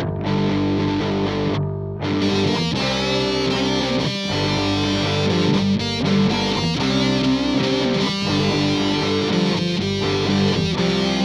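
Background music led by distorted electric guitar, playing steadily.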